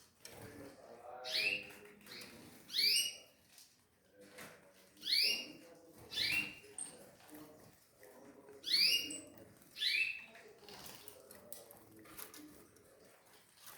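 Canaries calling: six short, rising chirps, loud and whistle-like, coming singly and in pairs over about ten seconds.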